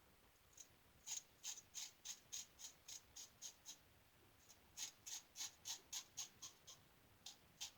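Single-edge safety razor (Star Super Six with a Gem blade) scraping through heavy stubble in short, crisp strokes, about four a second, in three runs with brief pauses between.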